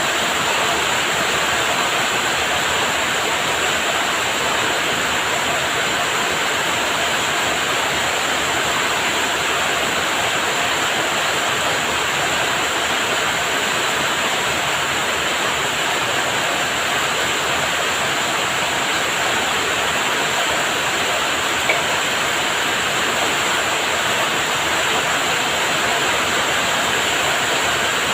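Heavy rain falling steadily, an even, unbroken wash of noise, with one brief click about two-thirds of the way through.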